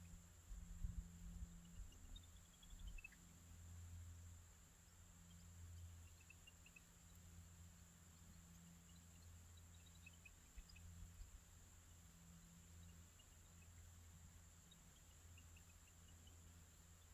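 Near silence, with faint scattered small-bird chirps, some in quick descending runs of notes, over a low steady rumble.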